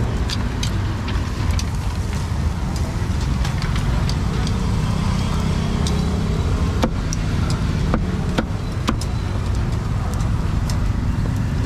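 Steady traffic rumble of a busy city street, with scattered sharp clicks and clatters, several close together a little past the middle.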